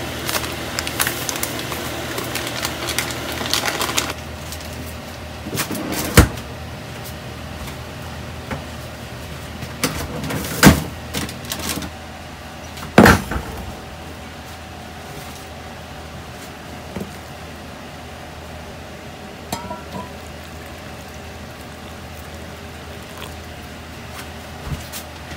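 Saucepan of udon boiling hard on an induction hob for the first few seconds. Then kitchen clatter: three sharp knocks of pot and dishware against a stainless steel counter and a few lighter clinks, over a steady low hum.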